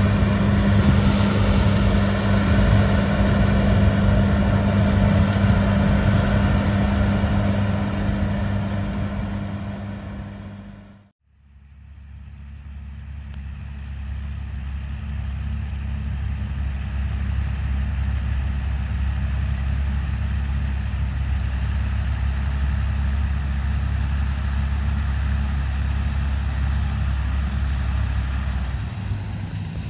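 Large farm diesel engine running steadily. About a third of the way in the sound fades out briefly, then comes back as a deeper, duller engine hum with less hiss.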